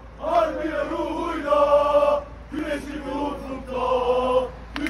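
Group of young men chanting a football supporters' song in unison, in two phrases with long held notes and a short break between them.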